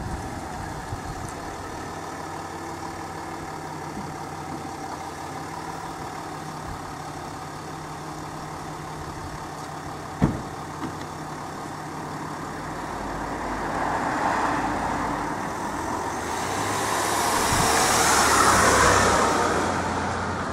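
Range Rover Sport's engine idling steadily, with one sharp click about halfway through. In the last several seconds a louder rush of engine and tyre noise swells up twice.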